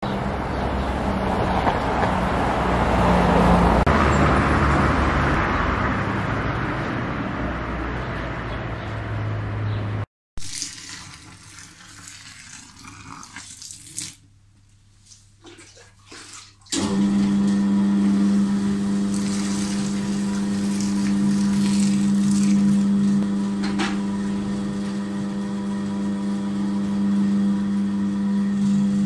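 For about the first ten seconds, a steady rush of water runs down the glass of a shop window. After a short quiet stretch, a spiral dough mixer starts about 17 seconds in and runs with a steady motor hum.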